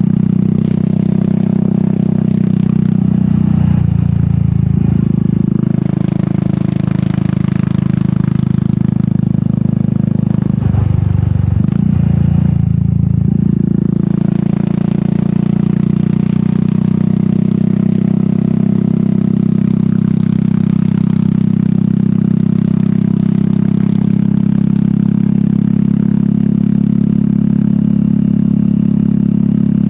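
Royal Enfield Meteor 350's single-cylinder engine, fitted with an aftermarket sport exhaust, running under way on the road. Its note dips and picks up again twice, about four seconds in and about eleven seconds in, then holds steady.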